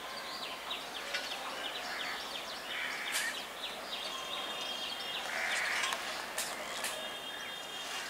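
Outdoor ambience of small birds chirping again and again over a steady background hiss of distant noise, with a thin high held note twice in the second half.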